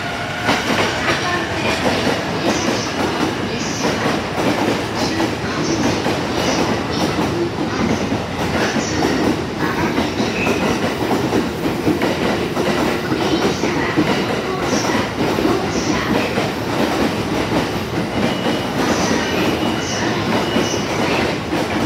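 Train running through the station, its wheels clacking over rail joints in a steady run of clicks, with faint wheel squeal now and then.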